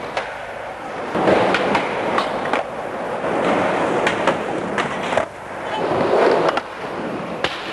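Skateboard wheels rolling on hard ground with a steady rushing sound, punctuated by about eight sharp clacks and knocks of the board hitting the ground.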